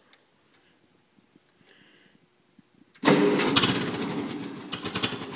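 Ferguson TO-20 tractor's four-cylinder petrol engine cold-started without the choke: after a faint click and near silence, it starts suddenly about three seconds in and runs with an uneven, pulsing beat.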